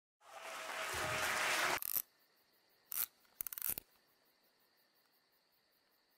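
A rush of noise that swells up and cuts off sharply after about two seconds, then two short scratchy scrapes, then a faint hiss with a thin high steady tone and quick, evenly spaced high chirps like crickets.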